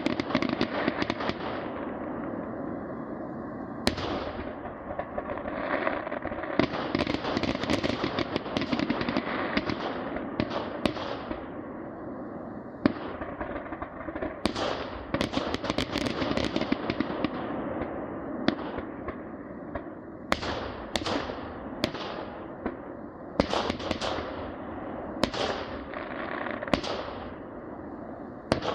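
Fireworks going off in a continuous barrage: a steady crackle under frequent sharp bangs, several of them trailing off in fading crackles.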